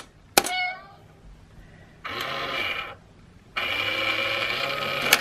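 A coin is set down on the plate of an Itazura calico-cat coin bank with a light metallic clink. The bank's small electric motor then whirs in two spells, about a second and then about a second and a half, as the lid lifts and the toy cat reaches out for the coin.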